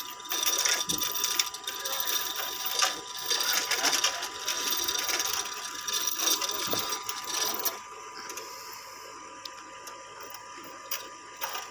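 Manual chain hoist being worked by hand: the hand chain rattles through the block and the ratchet clicks rapidly, stopping about two thirds of the way through, with a few single clicks after.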